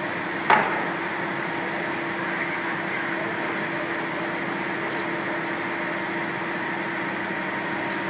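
Heavy diesel equipment running with a steady drone and a low hum, with one sharp bang about half a second in.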